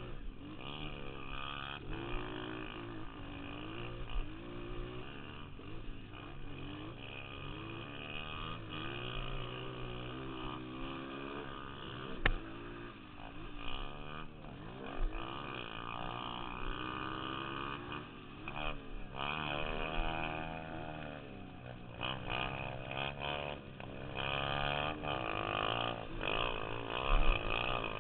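Dirt bike engine revving up and down over and over, its pitch rising and falling as the rider accelerates, shifts and backs off around a motocross track. A sharp knock about twelve seconds in.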